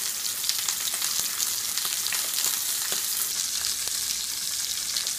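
Steak sizzling in a hot frying pan, a steady hiss with small crackles and pops.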